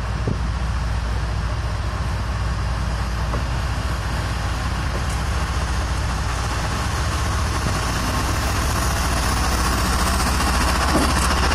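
Diesel-electric freight locomotives running as they approach and pass close by, a steady low engine hum that grows gradually louder toward the end.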